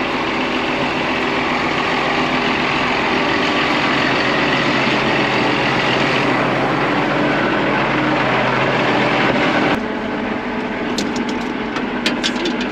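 Case IH Quadtrac tractor's diesel engine running steadily up close, with a steady pitched hum. About ten seconds in the sound drops suddenly to a quieter, muffled engine drone heard inside the cab, with a few sharp clicks near the end.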